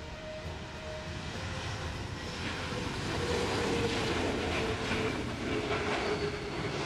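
Twin-engine jet airliner rolling down the runway: the jet engines' rumble and whine, growing louder from about three seconds in as it passes close, the whine sinking slightly in pitch as it goes by.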